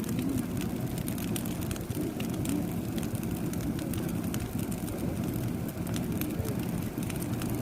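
Bonfire burning, with many small crackles and pops over a steady low rumble.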